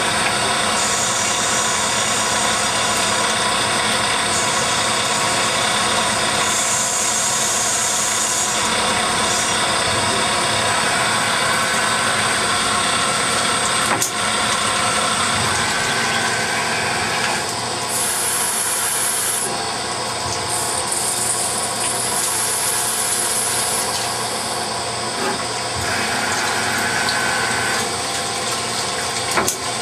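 A Hardinge HXL lathe, retrofitted to CNC, running a part: a steady machine noise from the turning spindle and the coolant pouring onto the work. High whines come and go several times, and there is one sharp click about halfway through.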